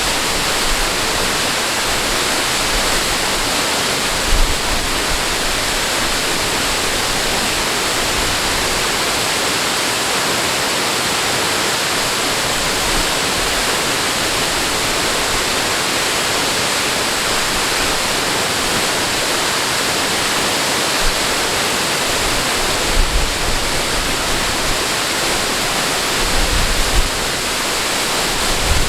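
Steady, loud rush of flowing or falling water, with a few brief low rumbles about four seconds in and again near the end.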